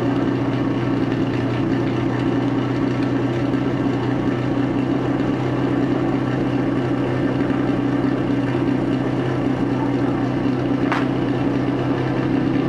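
Portable fire pump's engine running steadily at the base, a constant loud drone, while the team waits at the start line. A single sharp click sounds about eleven seconds in.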